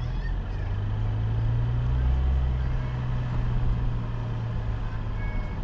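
A car driving along, heard from a camera mounted on the car: a steady low engine hum and road rumble that swells a little about two seconds in.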